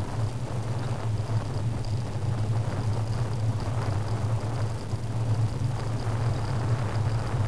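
Steady wind and rolling noise on a bicycle helmet camera's microphone while riding along a paved path, under a constant low hum.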